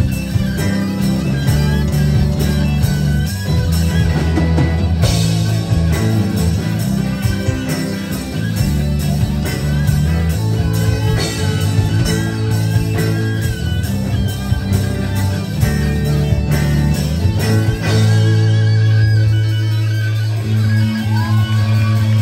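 Live rock band playing an instrumental passage through a PA: electric guitars, bass and drums, with a wavering lead line over the top. Near the end it settles into a long held chord.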